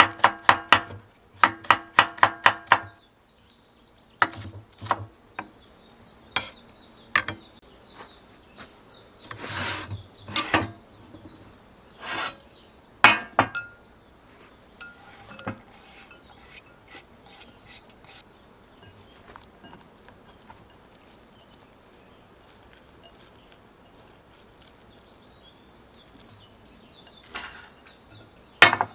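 A knife chopping rapidly on a cutting board for the first few seconds, then scattered clinks and knocks of bowls and utensils being handled. Birds chirp faintly in the background.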